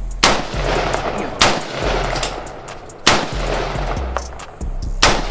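Four shots from an AR-15 rifle firing 5.56 rounds, spaced about a second and a half apart, each followed by a ringing tail.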